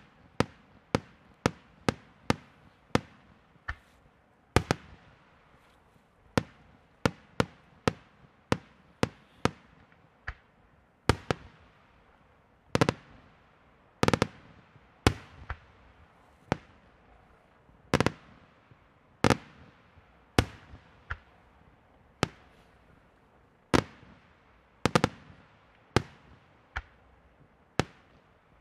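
Bruscella aerial firework shells bursting one after another, sharp bangs at uneven intervals of roughly half a second to two seconds, about one a second on average, each with a short echoing tail.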